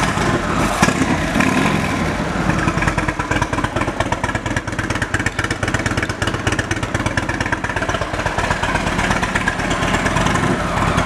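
2016 Indian Chief Vintage's 111-cubic-inch V-twin engine running just after being started, with a rapid, even firing beat. The exhaust is a little louder than a factory Indian's.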